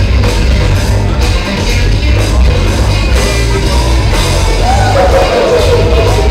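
Loud music with a heavy, steady beat.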